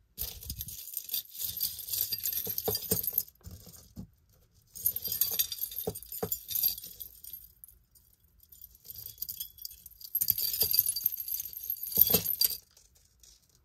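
Tangled metal necklace chains and pendants jangling and clinking as they are pulled apart by hand, in three bouts of a few seconds each.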